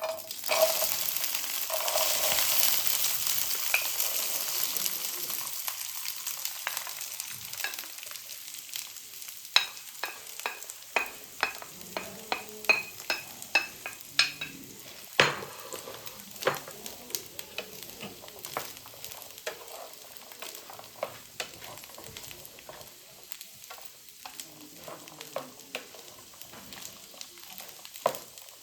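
Food hitting a hot oiled pan with a sudden loud sizzle that slowly dies down. It is then stirred, the utensil clicking and scraping against the pan about once a second while it keeps sizzling softly.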